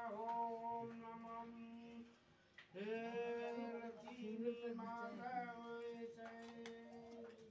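Faint singing over a steady held drone, with a short break about two seconds in.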